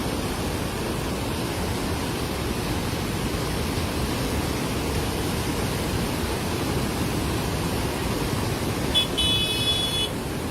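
Steady rushing roar of a swollen, flooded river. About nine seconds in, a brief high-pitched toot like a horn sounds over it for about a second.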